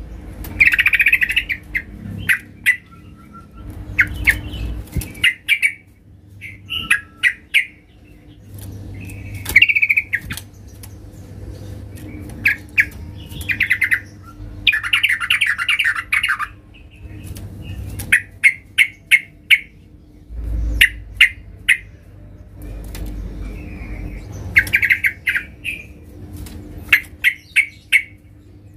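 Yellow-vented bulbul singing loudly and repeatedly: short bubbling phrases alternate with quick runs of sharp chips, about five a second.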